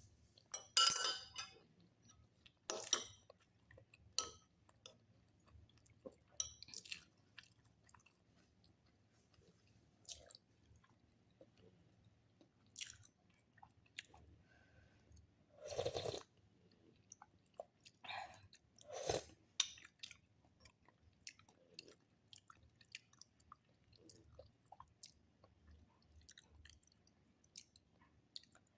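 A person chewing food with irregular crunching bites, a few of them louder and spaced several seconds apart.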